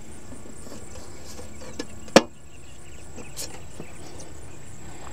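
One sharp click about two seconds in as the lantern's top cap is set back down onto the lamppost housing, over a steady high chirring of insects.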